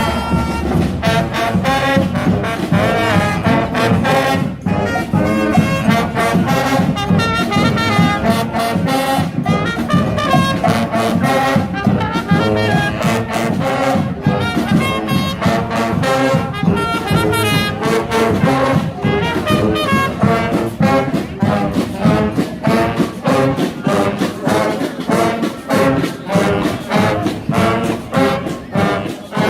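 Street brass band playing a lively tune, with horns such as trombones and trumpets over drums keeping a steady beat.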